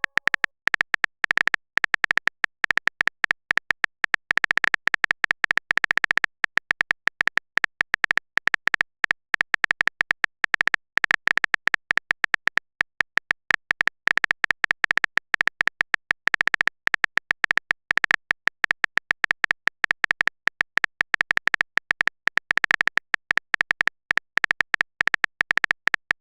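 Phone-keyboard typing sound effect: a rapid, irregular stream of short, high clicks, one per keystroke, that runs without a break and stops just before a short rising blip.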